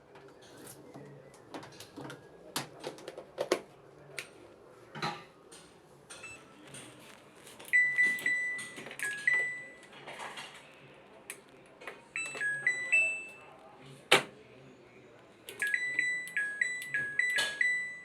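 Washing machine control panel beeping: short electronic tones stepping between a few pitches in quick runs, with a sharp click between two runs. Before the beeping starts there are scattered clicks and knocks of handling.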